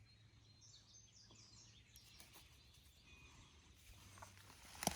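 Near silence in woodland, with a few faint, high bird chirps in the first couple of seconds. Near the end, louder rustling and crackling of leaves starts up.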